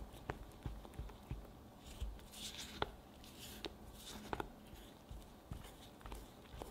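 Spatula scraping and tapping against a glass bowl while tossing chocolate truffle mixture in cocoa powder: soft irregular taps, with a short stretch of scraping a little after two seconds in.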